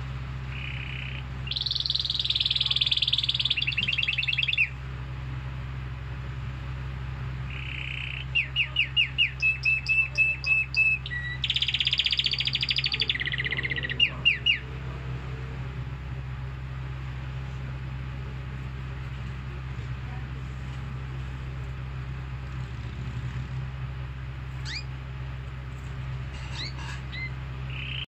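Canary singing in several bursts of rapid rolling trills and quickly repeated notes, the longest phrases lasting about three seconds. It then falls quiet apart from a few faint chirps near the end. A steady low hum runs underneath.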